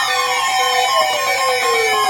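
Electronic tones: several pitches beeping on and off a few times a second while other tones slide slowly downward in pitch.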